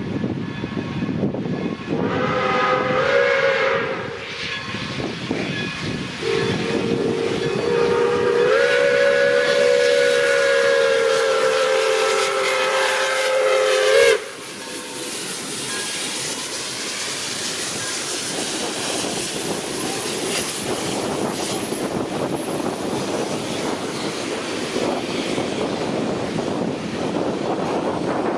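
Steam locomotive chime whistle: a short blast about two seconds in, then one long blast that rises a little in pitch as it opens further and cuts off sharply about halfway through. A steady rushing noise follows.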